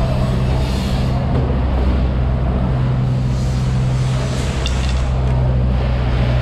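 Steady low machine hum with a faint noisy wash above it.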